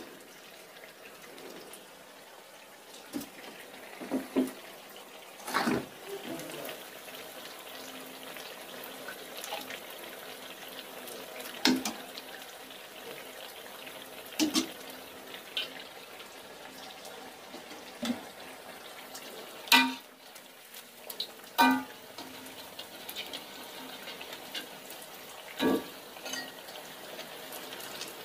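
Mendoan frying in hot oil in a wok, a steady soft sizzle. Over it, a metal ladle and spatula clink and knock against the aluminium soup pot and the wok every few seconds.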